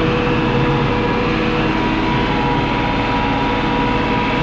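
Diesel farm tractor running steadily under load while pulling a bush hog rotary mower through tall weeds, with a constant engine drone and a steady whine.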